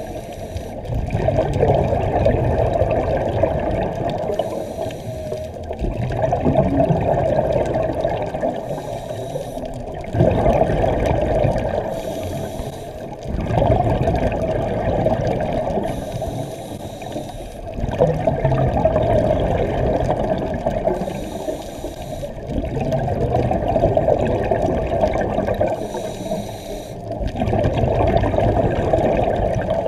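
Scuba diver breathing through a regulator underwater: a short hiss on each inhale, then a rush of exhaled bubbles lasting a few seconds, repeating about every four seconds.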